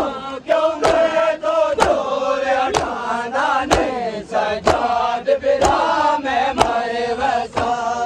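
Mourners beating their chests in unison (seena zani matam), a sharp slap about once a second, under men's voices chanting a noha.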